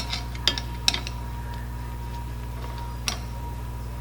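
A few sharp metallic clicks and taps from hand tools working the front brake caliper bolt, three close together at the start and one more about three seconds in, over a steady low hum.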